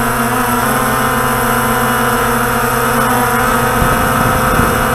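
Walkera Tali H500 hexacopter's brushless motors and propellers humming steadily while it hovers, heard close up from the onboard camera.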